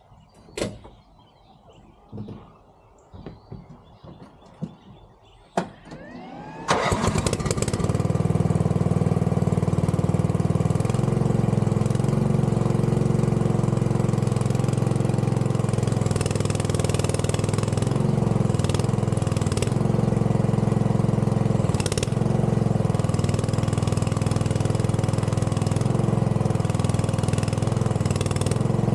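A few knocks and clicks, then about six and a half seconds in a mini excavator's engine starts and runs steadily, its note shifting now and then as the machine is worked.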